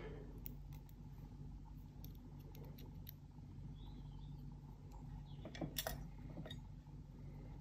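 Faint small clicks and taps of a metal bolt and washer being handled and started by hand into a spoiler's mounting bracket, with a slightly louder clatter and rustle about two thirds of the way through, over a low steady hum.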